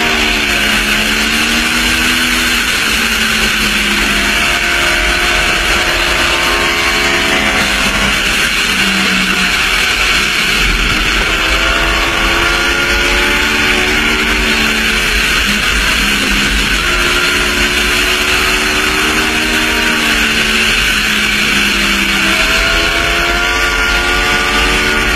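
Sport bike engine heard from on board with heavy wind rush over the microphone. Its pitch climbs and drops again and again as the rider accelerates and eases off through the bends.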